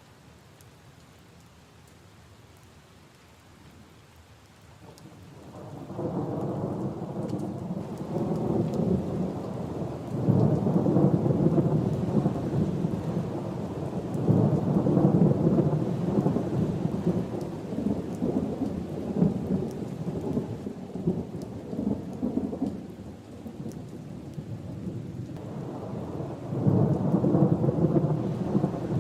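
Steady rain falling, faint at first, then long rolls of thunder: a rumble swells in about six seconds in, rolls on for over fifteen seconds, dies down, and builds again near the end.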